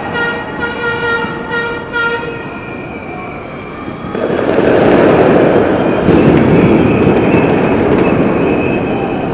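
A horn holds a steady note for about two seconds over street noise. About four seconds in, a crowd erupts into loud cheering and shouting: football fans celebrating a goal.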